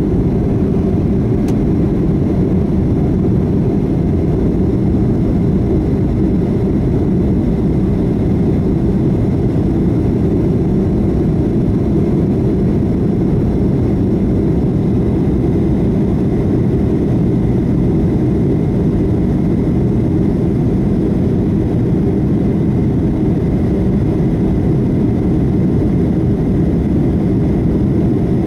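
Boeing 757-223 jet engines and rushing air heard inside the passenger cabin, a loud, steady low rumble with a faint, steady high whine.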